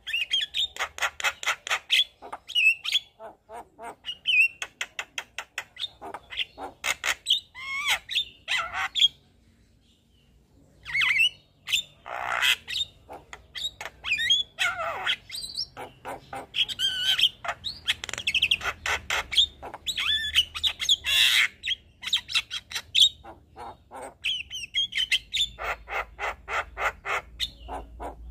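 Javan myna singing a long, varied song of rapid clicking rattles, harsh squawks and short whistled notes, with a brief pause about ten seconds in.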